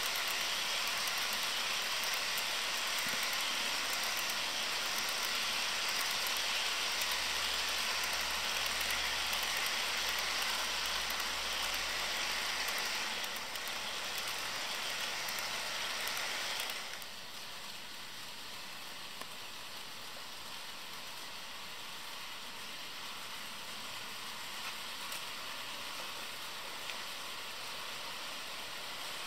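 HO scale model freight train rolling along sectional track, a steady hiss of small wheels on the rails. A little past halfway the noise drops abruptly to a quieter steady level.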